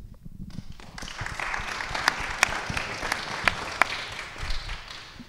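Audience applauding, building up within the first second and thinning out near the end, with single sharp claps standing out from the patter.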